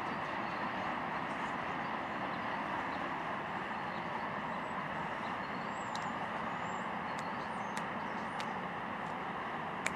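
Steady rolling noise of a freight train's covered hopper cars passing on steel wheels and rail, with a couple of sharp clicks near the end.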